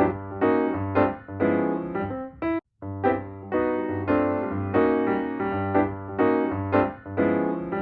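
Background piano music: a steady run of keyboard notes, broken by a brief cut to silence about two and a half seconds in.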